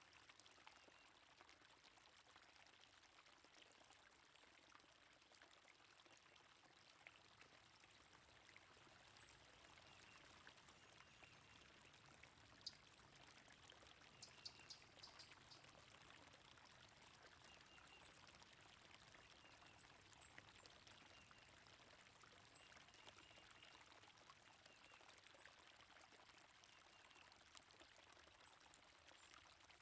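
Faint, steady flow of stream water, with brief, high bird chirps scattered over it.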